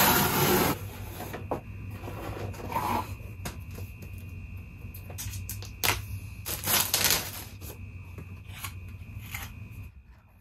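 Packing tape ripped off a cardboard shipping box, then cardboard and the boxed Apple AirPods Max handled: scattered taps, clicks and rustles, with a second burst of rustling about seven seconds in.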